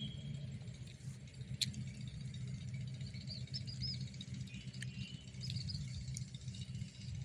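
Outdoor ambience: a steady low hum with a few short, high bird-like chirps in the middle, and a couple of sharp clicks.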